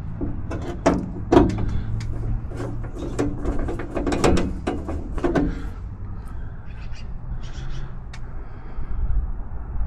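A run of sharp clicks and knocks of metal hardware and a hand tool being handled against a Jeep door's plate, most of them in the first half, a few fainter ones later, over a steady low hum.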